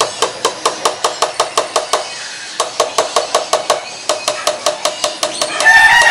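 A black nylon potato masher pounding boiled potatoes in a stainless steel pot, clacking against the pot about five times a second, with a brief pause partway. Near the end, a loud, drawn-out, high call starts over the mashing.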